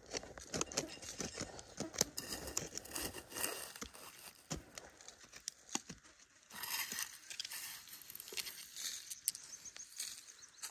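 A flat metal blade scraping and prying in dry gravelly soil: grit crunching and small stones clicking in quick, irregular scrapes and taps.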